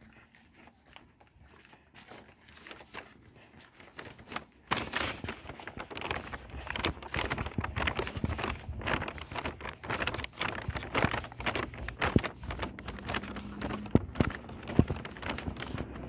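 Footsteps on a paved walkway, faint at first and then much louder and busier about five seconds in. A vehicle's low hum rises faintly near the end.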